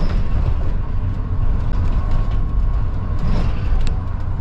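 Dennis Trident double-decker bus under way, heard from inside on the upper deck: a steady low engine drone with a faint whine above it. A short sharp click or rattle comes near the end.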